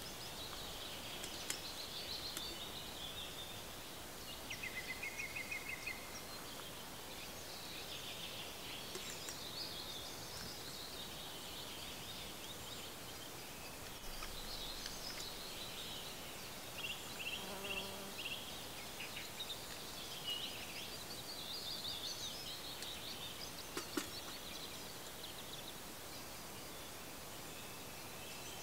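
Woodland birds singing: scattered high chirps and quick trills over a steady background hiss, with a sharp click about a second and a half in and another near the end.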